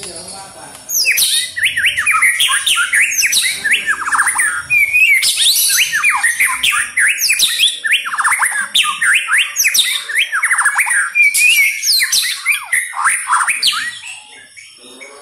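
White-rumped shama singing in a loud, fast run of varied whistled phrases, sweeps and trills. The song starts about a second in and eases off near the end.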